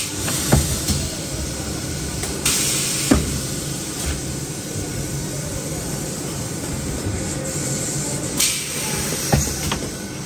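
Battery-factory floor noise: a steady mechanical din with two short bursts of hiss, one about two and a half seconds in and one near the end, and a few sharp knocks.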